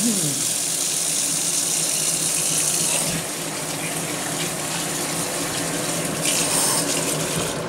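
Water running from a kitchen faucet's pull-out sprayer onto cherry tomatoes in a stainless steel colander: a steady rush of running water that shifts a little as the stream moves over the fruit.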